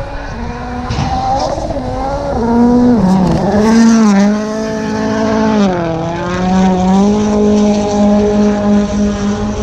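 Rally car engine at full throttle, its note falling twice in pitch about three and six seconds in before holding steady.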